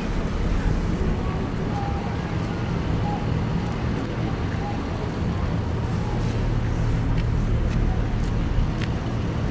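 Street ambience in midtown Manhattan during a snowstorm: a steady low city rumble.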